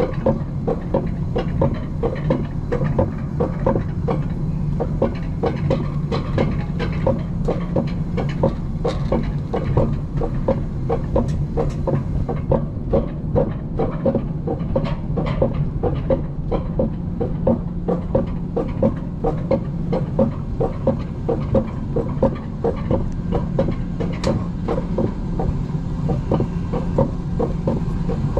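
Alpine coaster sled being hauled up the lift section of its tubular steel rail track: a steady low hum with a rapid, even clacking.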